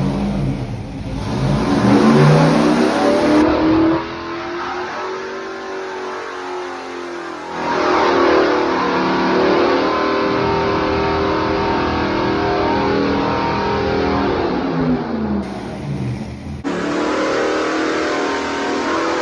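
600 cubic inch big block Chevrolet V8 running on an engine dynamometer. It revs up, drops back at about four seconds, then rises again and holds a steady high speed for about seven seconds. Near the end it falls off and revs up once more.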